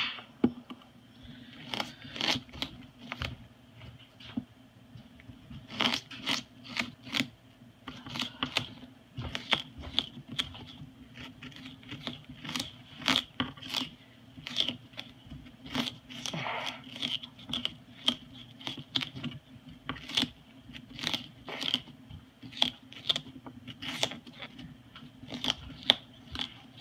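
Moluccan cockatoo shredding sugarcane stalk with its beak: irregular crunches, snaps and tearing of the fibres, sometimes several in quick succession.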